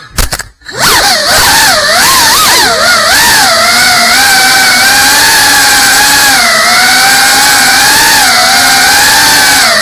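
A quadcopter's brushless motors and ducted propellers whining, picked up close by the onboard camera, on a GEPRC CineLog 35 cinewhoop. The whine cuts out almost completely for about half a second at the start as the throttle is chopped, then the motors spin back up and the pitch rises and falls with the throttle.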